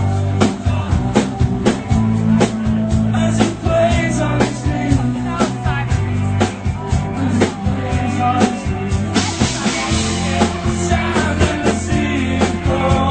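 Rock band playing live: a drum kit keeping a steady beat under bass and guitar. The cymbals get brighter about nine seconds in.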